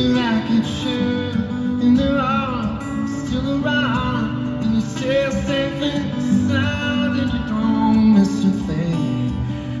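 Solo acoustic guitar played live in an arena, with bass notes and chords under a melody, and a voice singing over it in places.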